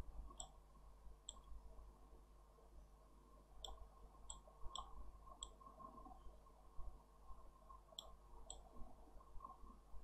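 Computer mouse button clicking faintly, about eight sharp clicks at irregular spacing: points of a custom motion path being placed one by one along a letter's outline.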